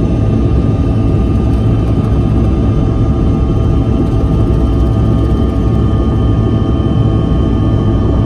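Cabin noise of a Bombardier CRJ-200 regional jet rolling along the ground: a steady low rumble with a constant whine from its twin rear-mounted turbofan engines, which are not spooling up.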